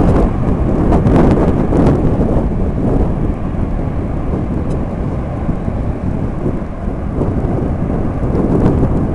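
Deep jet-engine rumble from a Boeing 737-700 on the runway, mixed with wind buffeting the microphone. It is loudest in the first two seconds, eases off, then swells again near the end.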